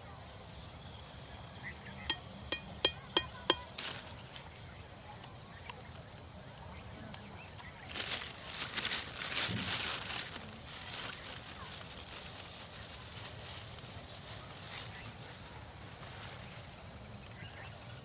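Steady high insect drone, with five quick sharp knocks about two seconds in, a few seconds of noisy rustling around eight seconds in, and then a string of short high chirps.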